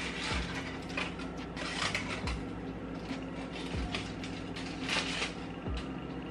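Scattered light clicks and scrapes of kitchen utensils handling baked potatoes while testing whether they are soft, over a steady low hum.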